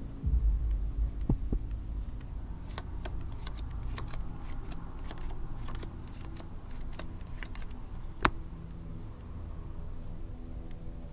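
Clay poker chips clicking as they are fingered and stacked: a run of sharp separate clicks, the loudest about eight seconds in. Under it runs a low steady drone, with a deep boom in the first second or so.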